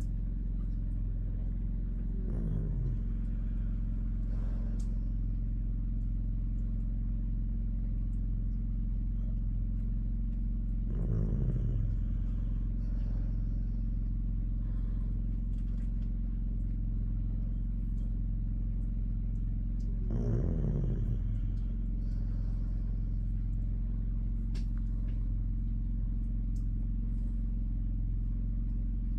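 Sleep sounds from a sleeper: three short, low vocal sounds that fall in pitch, about nine seconds apart, over a steady low hum.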